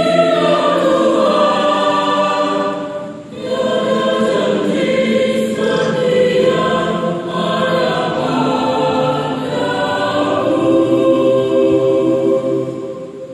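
Mixed church choir singing a worship song in harmony, with a brief breath pause about three seconds in and a phrase dying away near the end.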